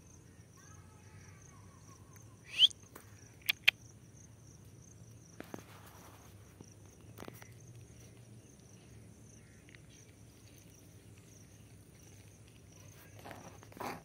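Insects, likely crickets, chirping steadily in a high, faintly pulsing tone. About two and a half seconds in there is one loud, short, rising call, and about a second later two sharp clicks.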